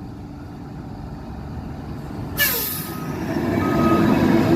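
A heavy truck nearby: its air brakes let out a sudden hiss about halfway through, then its engine gets louder and its reversing alarm starts up, a steady high beep repeating about once a second.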